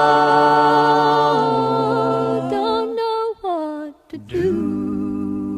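Unaccompanied singing of a gospel hymn: a long held note on the word 'trouble', then, after a short break about four seconds in, the next phrase begins.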